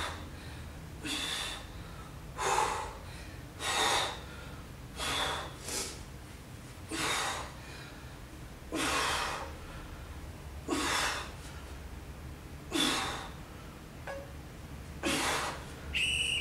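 A woman breathing hard in time with push-up reps: a dozen loud, forceful breaths, one every one to two seconds.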